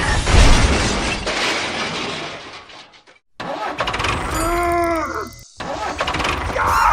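Vehicle engine noise in several short clips cut together. A loud burst with a low rumble opens it and fades out, and a pitched sound rises and falls about halfway through.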